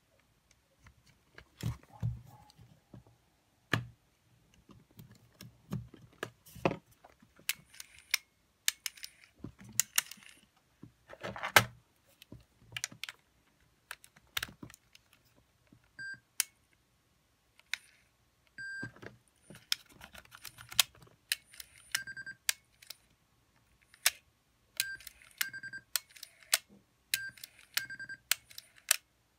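Small irregular clicks, taps and knocks of hands and tools working on the parts of an opened cassette Walkman. From about halfway, short high beeps also come at irregular intervals, often two at a time.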